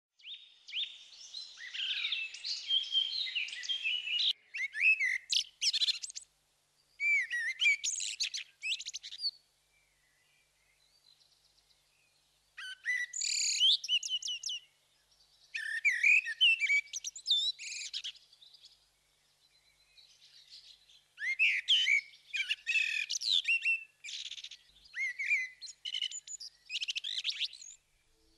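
A songbird singing: fast, varied, warbling phrases a few seconds long, with short pauses between them and two longer pauses, about a third and two-thirds of the way through.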